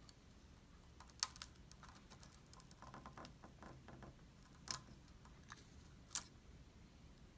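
A few sharp, light clicks and taps, with fainter ticks between them, from small parts and hand tools being handled during an iPad 2 repair.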